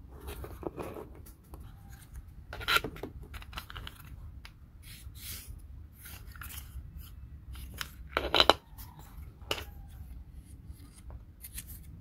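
Small wooden puzzle pieces being handled and worked at a table: scattered light clicks and short scraping rustles, with two louder sharp clacks, one about three seconds in and one just past eight seconds.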